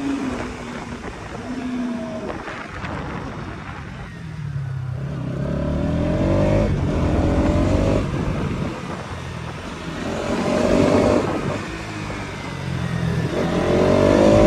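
Bajaj Pulsar NS200's single-cylinder engine running as the bike is ridden, over road and wind noise. Its pitch rises under acceleration about five seconds in and again near the end.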